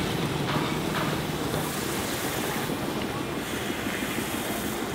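Milk tea poured over a red-hot clay cup, sizzling and bubbling as it foams over and runs down into a brass pan, in a steady hiss.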